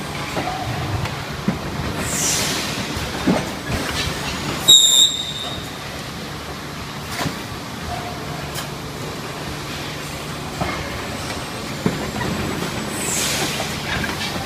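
Thermoform packaging machine running through its cycles: a steady mechanical hum with clicks and knocks, a falling pneumatic hiss twice, and a loud short high-pitched whistle about five seconds in.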